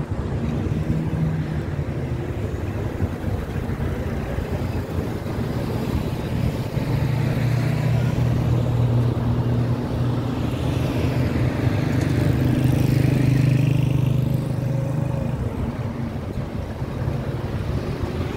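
City street traffic: motor vehicle engines running close by. The low engine hum swells through the middle and eases off near the end.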